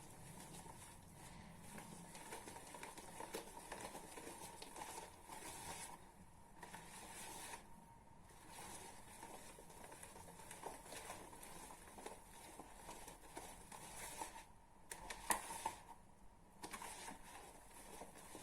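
Cake batter being stirred in a bowl with a utensil: soft, irregular scraping with short pauses, and one sharp knock about fifteen seconds in.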